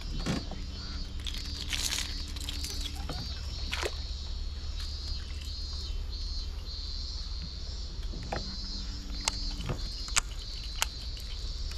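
Insects buzzing in a steady, high, pulsing chorus over a low rumble. Twice a low steady hum sounds for a second or two, and a few sharp clicks come near the end.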